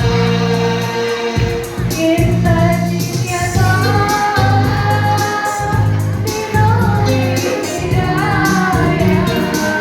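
Choir singing a song in unison with instrumental accompaniment, held sung notes over a bass line that steps to a new note every second or so.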